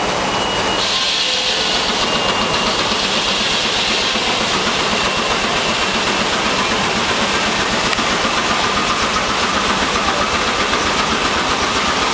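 A 1916 J. I. Case steam traction engine driving a sawmill runs steadily with a loud, dense noise. A thin steady whine comes in during the last few seconds.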